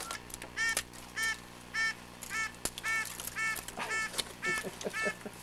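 Waterfowl calling: a series of about nine short honking calls, evenly spaced a little over half a second apart.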